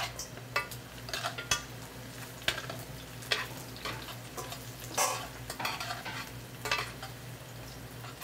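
A spoon scraping and clinking against a stainless steel mixing bowl as dressed salad is tipped out of it onto a plate: irregular sharp clinks, some with a short metallic ring, about one or two a second.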